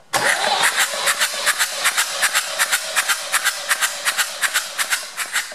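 Perkins AD3.152 three-cylinder diesel cranked over on its starter motor with the fuel shut off, for a compression test: a loud, even chuffing of about five compression strokes a second that starts suddenly and dies away near the end.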